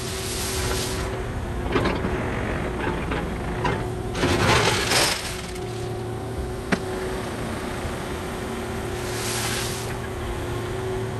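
Excavator engine running steadily at one pitch, with bursts of scraping and rattling, the loudest about four to five seconds in, and a single sharp knock a little past halfway.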